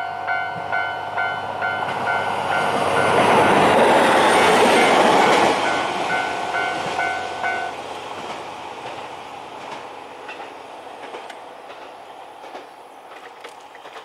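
Japanese level-crossing alarm bell ringing about two to three times a second while a JR Hokkaido H100 diesel-electric railcar passes, its engine and wheel noise loudest a few seconds in. The bell stops about eight seconds in as the crossing clears, and the train fades away with faint wheel clicks.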